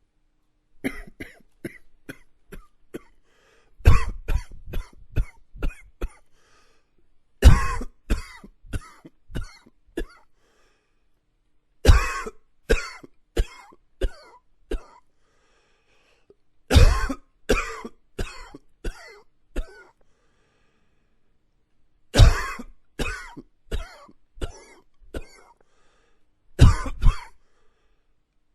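A man coughing in about seven fits, each opening with one hard cough followed by a quick string of weaker ones, with short pauses between fits.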